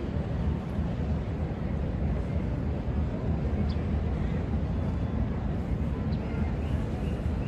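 Ferry-pier waterfront ambience: a steady low rumble with no distinct engine note, and a faint short high chirp a little past halfway.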